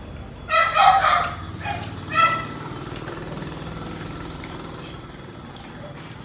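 A small dog giving a few short, high-pitched yips, the loudest cluster about half a second in and one more a little after two seconds.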